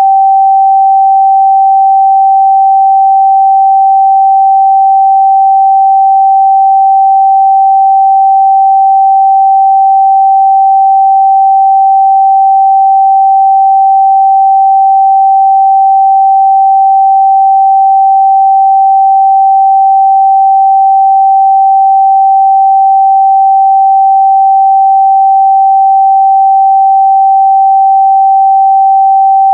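A steady, loud 777 Hz sine-wave test tone: one pure unbroken pitch.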